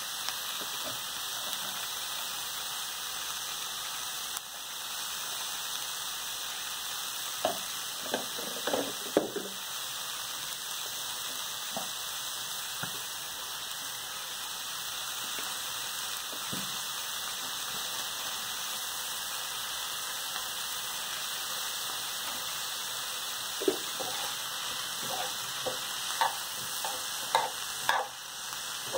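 Broccoli and onions sizzling in a frying pan, a steady hiss. Scattered clicks and scrapes of stirring in the pan come in a cluster about eight seconds in and again near the end.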